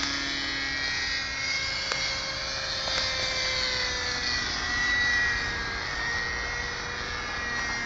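Hirobo Shuttle Plus radio-controlled helicopter in flight, its .30-size glow engine and rotor whining steadily, with the pitch slowly sagging and rising as it manoeuvres.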